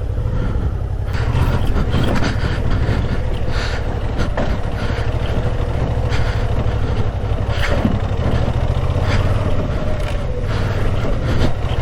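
Suzuki V-Strom 650 XT's V-twin engine running steadily at low revs as the bike works its way out of a muddy rut. Scattered knocks and rattles come through the engine sound.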